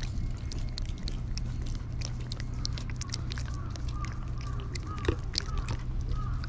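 A cat licking and smacking at a squeeze tube of lickable paste treat right at the microphone: a rapid, irregular run of wet clicks, with short faint chirps in the second half.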